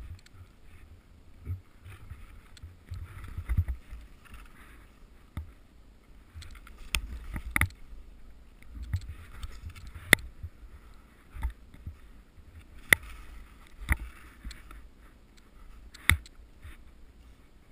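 Skis swishing and scraping through soft, tracked snow in a run of turns, heard from a camera worn by the skier, with a low wind rumble on the microphone. A handful of sharp knocks cut through, the loudest in the second half.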